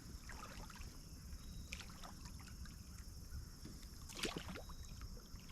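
Quiet boat ambience: faint scattered small clicks and knocks over a low steady rumble, with a slightly louder cluster of knocks about four seconds in.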